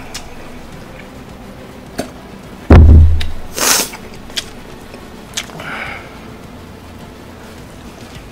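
A heavy, booming thump about three seconds in, close to the microphone, followed by a short hissy slurp and softer eating noises from a person wolfing down noodles. Faint background music runs underneath.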